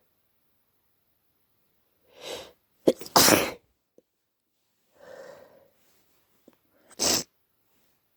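A man's induced sneezes from a blocked nose. The first is a drawn-in breath and then a loud, sudden sneeze about three seconds in. A second intake of breath follows, then a shorter, sharp sneeze near the end.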